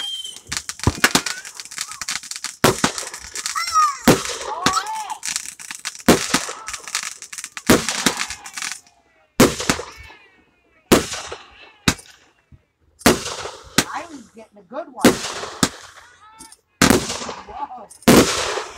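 Consumer fireworks going off: a run of sharp bangs one to two seconds apart, each trailing a crackling hiss.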